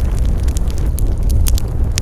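Wood fire crackling: scattered sharp pops and snaps over a steady low rumble of burning flames.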